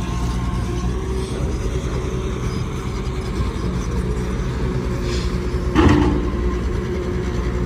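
Caterpillar 320D excavator's diesel engine running steadily under work, with one loud metallic clank a little before six seconds in.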